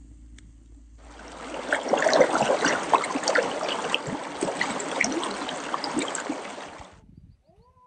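Shallow stream rushing and splashing over rocks, fading in about a second in and cutting off about a second before the end.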